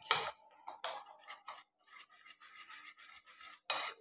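A hand beating thick gram-flour (besan) batter in a glass bowl, the fingers squishing and slapping through the paste in a run of irregular strokes, the strongest at the start and near the end.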